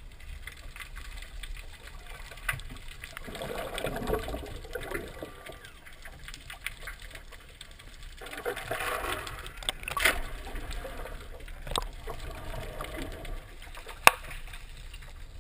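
Muffled underwater noise picked up by a submerged camera: a low water wash that swells twice, with scattered sharp clicks and knocks, the sharpest about fourteen seconds in.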